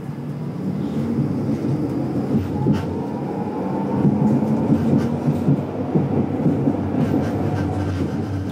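Tram running along a street, heard from inside: a steady low rumble of wheels on rails that grows louder, with a faint whine rising in pitch a second or two in and a few clicks.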